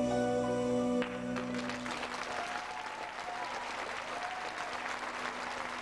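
A held final chord of music stops about a second in, and the audience breaks into applause.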